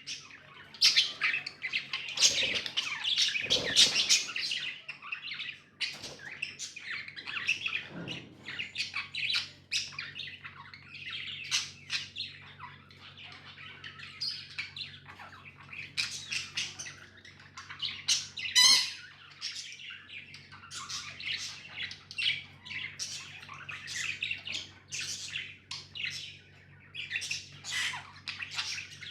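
Pet budgerigars chattering and chirping nonstop, with several birds calling over one another and a few louder squawks, the loudest about two-thirds of the way through.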